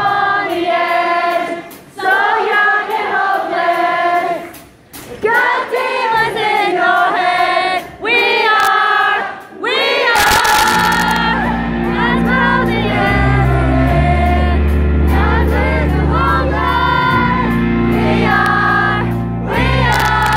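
A live rock concert with many voices singing a melody together over sparse backing, the level dipping between phrases. About halfway through, a cymbal crash brings in the full band with a heavy low end, and the singing carries on over it.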